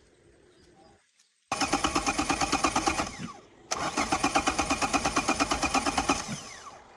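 A long-unused Toyota car's engine cranked on the starter motor in two attempts, the fast, even pulsing of the engine turning over, each attempt winding down with a falling pitch as the starter stops.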